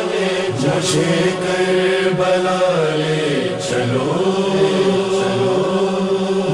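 Backing voices holding a steady hummed drone between verses of an Urdu noha, with a voice sliding down and back up in pitch over it twice.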